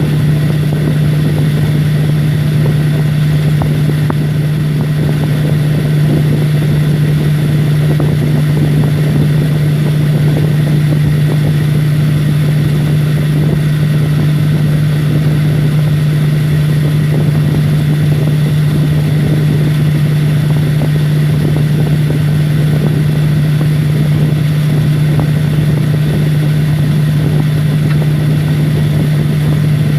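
Humidifier running: a steady low hum with a dense crackling, bubbling texture over it, unchanged throughout.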